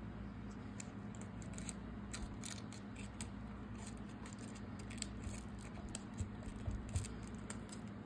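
Faint, irregular ticks and crinkles of cardstock paper petals being pressed and arranged by hand with a small tool, over a steady low hum.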